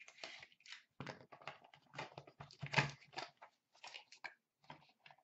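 Small white cardboard box being opened by hand: irregular rustling, scraping and crackling of card and wrapping, the loudest crackle a little under three seconds in.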